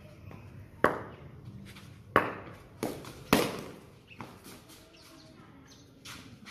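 Four sharp knocks in the first three and a half seconds, each with a short ringing tail, followed by a couple of fainter taps.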